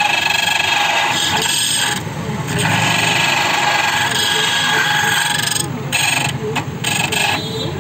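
Key duplicating machine running, its rotary cutter grinding a motorcycle key blank with a steady metallic whine that briefly drops off twice as the cut pauses.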